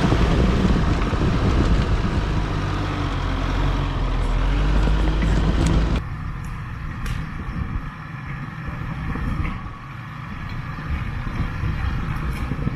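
Mitsubishi L200's 2.5 DI-D diesel engine running hard close by while the pickup is winched up a steep, muddy slope. About six seconds in it cuts abruptly to a quieter, more distant engine sound with a few scattered clicks and snaps.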